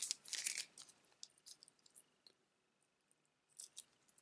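A small plastic zip bag crinkling briefly as it is opened by hand, followed by a few faint small clicks and another short rustle near the end.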